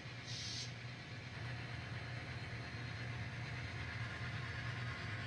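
Model train running on its layout: a steady low engine-like hum, with a short hiss about half a second in.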